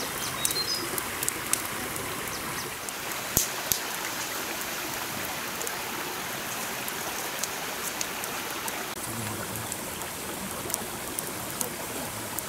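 Wood campfire crackling, with scattered sharp pops and snaps over a steady rushing hiss.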